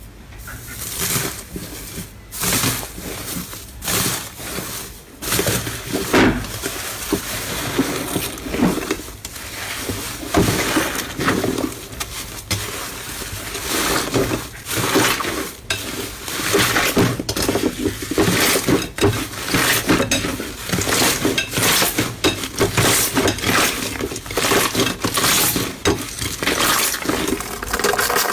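Slime being squeezed and pressed by hand, giving a dense, irregular run of crackling pops and sharp clicks.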